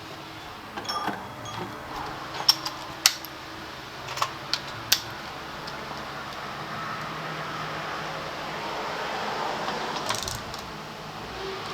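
Sharp metallic clinks and taps of hand tools and small metal parts during scooter servicing, in a few quick clusters, over a steady background hum.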